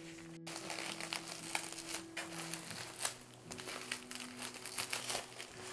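Plastic bubble wrap crinkling and crackling as hands pull it off a machined metal plate, a steady run of small crackles.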